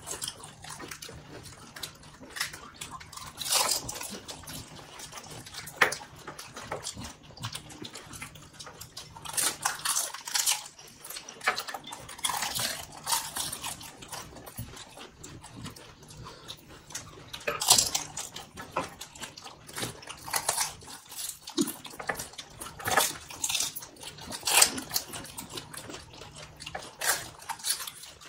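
Panipuri being eaten fast: crisp puri shells crunching and the spiced water slurped, in irregular wet bursts every second or two.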